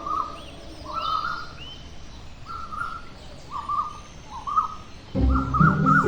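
Bird chirps repeating in short, bending calls about once every second or less, with fainter higher tweets among them. Near the end, music with a strong bass comes in.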